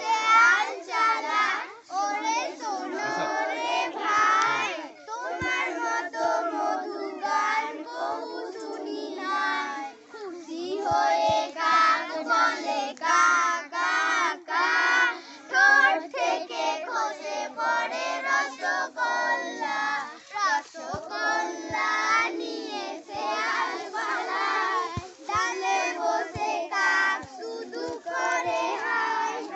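A group of girls chanting and singing a Bengali Bratachari exercise rhyme together, in short rhythmic lines.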